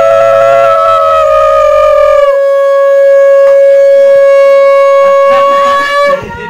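Conch shell (shankha) blown in one long loud note, dropping slightly in pitch a little over two seconds in, then held steady until it stops near the end.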